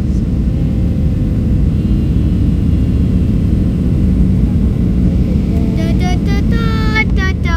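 Steady roar of an airliner cabin in flight: engine and airflow noise. A person's voice comes in over it near the end.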